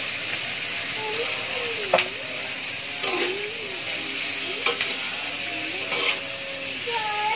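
Salted squid and tofu sizzling in oil in a wok over a gas flame, stirred with a ladle that knocks against the pan about four times, loudest about two seconds in.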